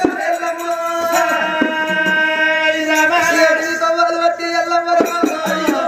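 Oggu katha folk singing: a voice holds a long, steady chanted note through the amplified stage sound, bending slightly in pitch about halfway through, with short sharp percussive strikes over it.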